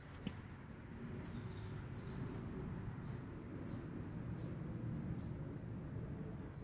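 A bird calling repeatedly outdoors: a run of about seven short, high calls, each dropping in pitch, roughly one every two-thirds of a second. A steady faint high tone and low background rumble run underneath, with a small click just after the start.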